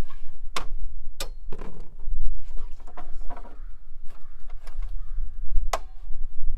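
Tools and lumber being handled: several sharp clicks and knocks, the strongest about half a second in, just over a second in and near the end, over a steady low rumble.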